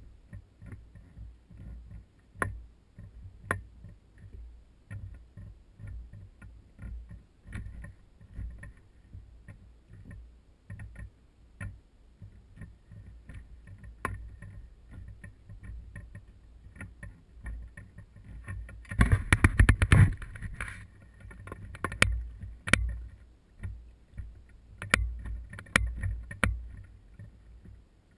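Small fishing boat on a lake: scattered sharp knocks and clicks of gear against the hull over a low rumble of water and wind. About two-thirds through comes a louder burst of noise lasting about two seconds.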